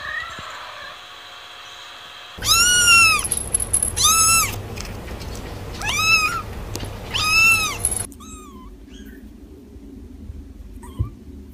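Kittens meowing: four loud, high-pitched meows starting a couple of seconds in, each rising then falling in pitch, then a few faint short mews.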